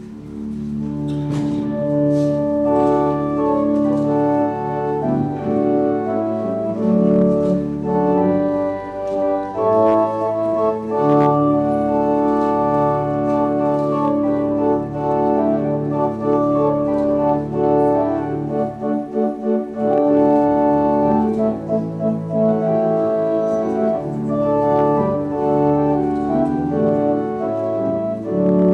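Organ playing slow music in long held chords, the notes changing every second or so over a sustained bass.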